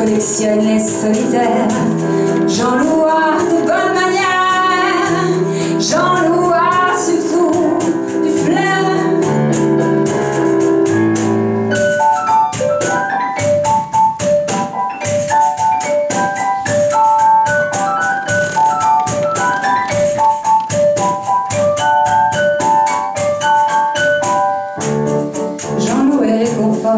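A woman singing live over a Yamaha CP stage piano, with a tambourine keeping a steady beat. About twelve seconds in the voice drops out for an instrumental passage of repeated keyboard notes over the tambourine rhythm, and the singing returns near the end.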